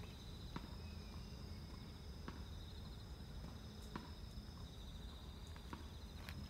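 Insects trilling: a faint, steady, high trill, two pitches at once, with a few soft clicks in between.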